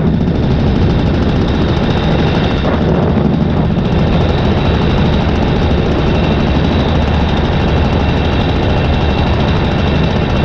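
Paramotor engine and propeller running at a steady throttle in flight, a loud even drone with no change in pitch.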